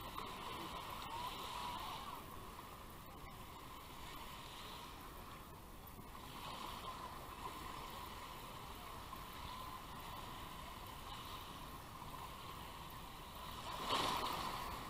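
Shallow surf lapping and washing at the shoreline, a steady swash of water with a louder wave rushing in near the end.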